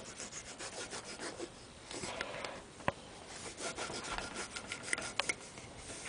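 A cloth strip rubbed quickly back and forth under the keys and along the body of a Buffet clarinet, ragging buffing dirt off the body and posts: a faint rubbing, with a few sharp clicks about three and five seconds in.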